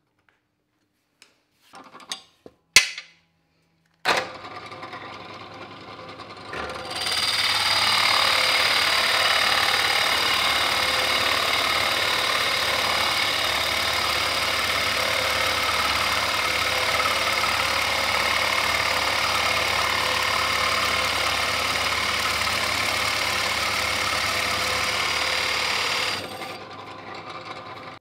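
A few light knocks, then a bench drill press motor starts about four seconds in. From about seven seconds a Forstner bit bores into a spalted beech slab, a loud steady cutting noise over the motor hum. Near the end the cutting stops and the motor runs on alone.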